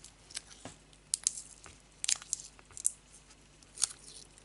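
Adhesive tape being wound by hand around a thin wire stem, giving irregular crinkles and sharp crackles.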